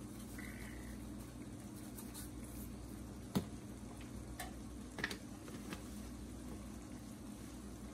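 Ground steak with peppers and onions quietly sizzling and simmering in its juices in a nonstick skillet, over a steady low hum. A few light clicks sound, the loudest about three and a half seconds in.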